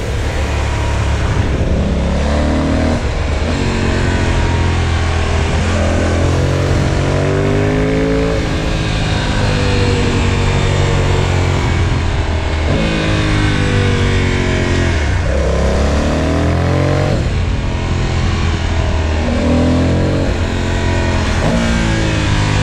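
Motorcycle engine on the move, its pitch climbing and dropping back several times as it accelerates and changes gear, over a steady rush of wind on the microphone.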